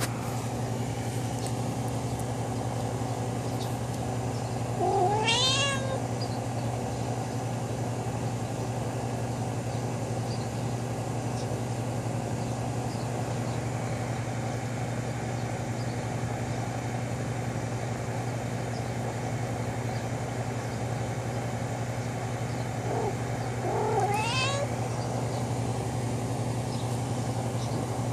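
A domestic cat meowing twice, each call rising in pitch, the first about five seconds in and the second a little past the twenty-second mark, over a steady low hum.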